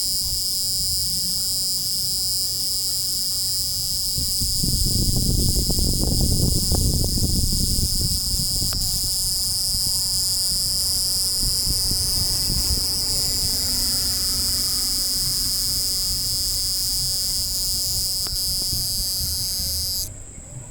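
A cricket trilling: one steady, unbroken high-pitched song that cuts off suddenly near the end. A low rumble swells under it for a few seconds about four seconds in.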